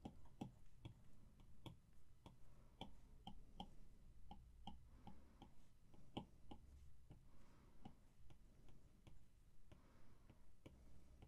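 Faint clicks of a stylus tip tapping on an iPad's glass screen with each short pencil stroke, irregular at about two or three a second.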